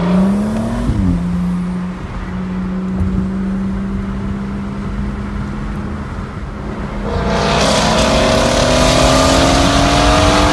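Car engine and road noise heard from inside the cabin of a stock BMW X3 28i at highway speed. The engine holds a steady note that creeps up in pitch, then about seven seconds in the car accelerates hard: the engine gets louder and its pitch climbs, with rising wind and tyre noise.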